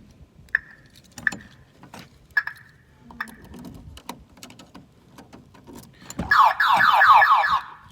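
A 1997 Jeep Wrangler's 2.5-liter four-cylinder engine is cranked by the starter, a fast rhythmic whir for about a second and a half near the end, after a few short clicks, and it does not start. The no-start turned out to be a broken timing chain.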